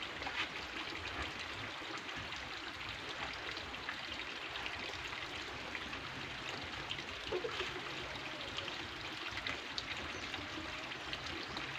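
Steady rushing hiss of flowing water, like a nearby stream, with a few faint ticks.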